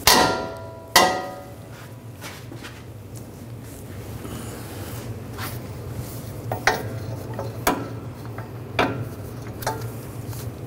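Socket wrench turning a 21 mm socket on a steel caliper bracket bolt: two sharp metallic clanks with a brief ring in the first second, then scattered lighter clicks and taps of the tool being worked.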